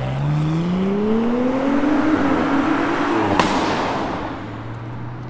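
2021 Audi SQ5's turbocharged 3.0-litre V6 accelerating hard away from a stop, its exhaust note rising steadily in pitch for about three seconds. A sharp crack comes at the upshift, then the engine drops to a lower steady note that fades as the car pulls away.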